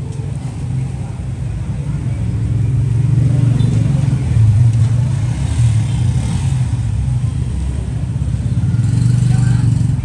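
Low rumble of passing road vehicle engines, swelling about three seconds in and again near the end.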